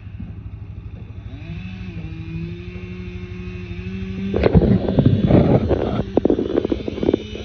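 A motor runs steadily, its pitch rising about a second and a half in and then holding. From about four seconds in, loud irregular cracking and crashing sounds over it.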